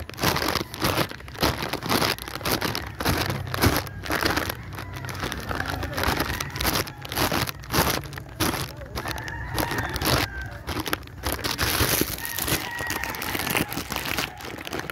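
Footsteps crunching on a gravel and dirt road, about two steps a second.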